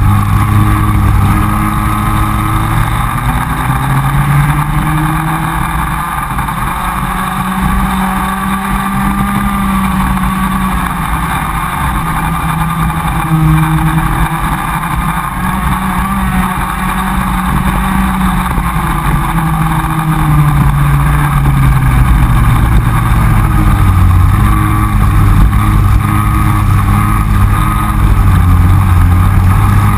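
Comer cadet kart's single-cylinder two-stroke engine running at race speed, its pitch falling off and climbing again several times as it slows for corners and accelerates out, with other karts' engines close ahead.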